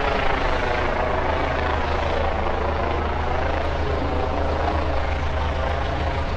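Steady engine drone with a strong low hum that holds without change, over faint voices.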